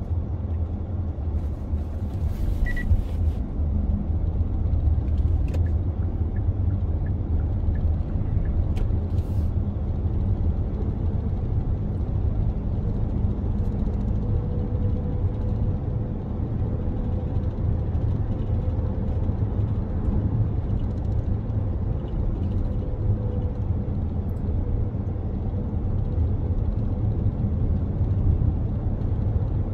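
Car driving at road speed: steady low rumble of tyres on the road and the engine, with a faint steady whine through the middle.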